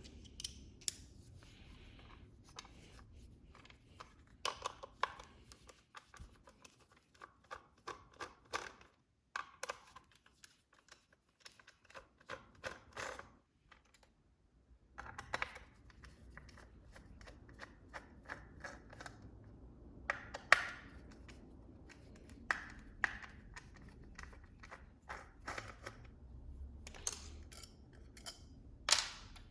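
Torx T15 screwdriver backing screws out of an electronic door lock's housing, with handling of the lock's parts: scattered sharp clicks and short scraping squeaks, the loudest a sharp click about 20 seconds in.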